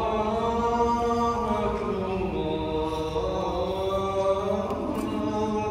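A solo voice chanting in the Islamic devotional style, holding long notes that slowly glide up and down in pitch.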